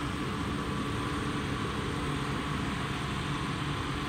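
Steady drone of airport ground support equipment running, with a constant hum over a rough low rumble.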